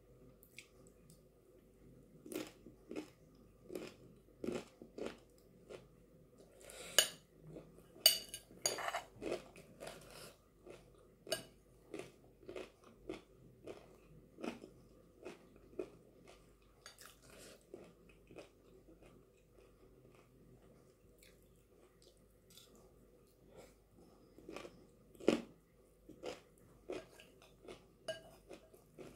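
Close-up crunching and chewing of chana chatpate, a snack mix with crispy nimki and Wai Wai noodles, bite after bite, easing off for a few seconds about two-thirds through. A metal spoon now and then clinks against the glass bowl.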